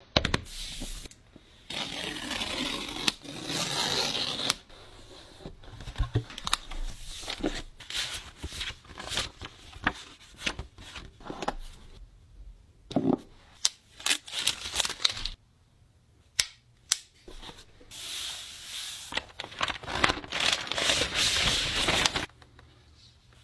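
Packaging being opened by hand: two long stretches of tearing and peeling, with many sharp clicks, taps and rustles in between.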